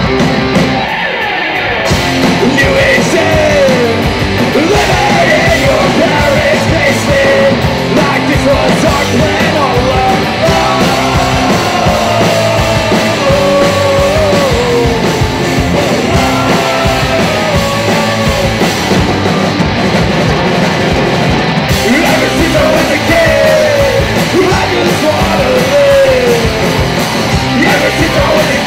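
Live rock band playing loud: electric guitars (a Fender Telecaster and a Les Paul-style guitar) and a drum kit, with a sung vocal line over them.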